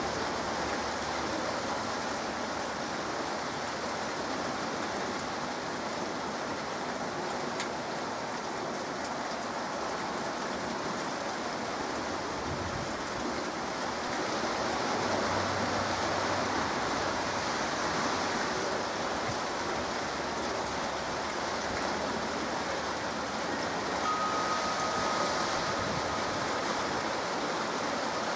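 Heavy rain falling steadily on trees and rooftops, an even hiss.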